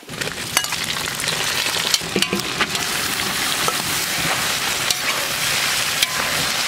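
Diced pork sizzling as it fries in a hot wok, stirred with a ladle that knocks and scrapes against the pan now and then.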